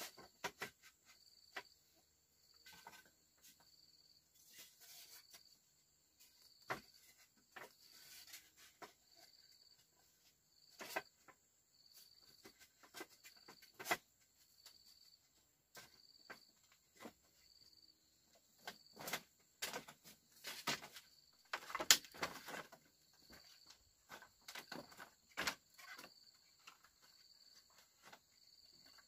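Forest insects, crickets among them, chirping in a high pulse about once a second over a steady, higher insect hiss. Scattered sharp knocks and clicks break in, the loudest about three-quarters of the way through.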